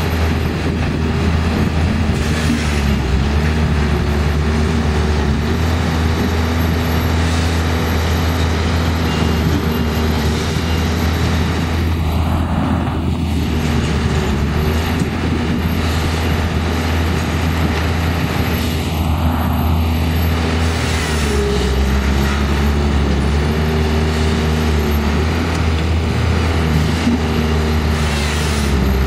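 Machine engines running steadily, with small shifts in pitch now and then.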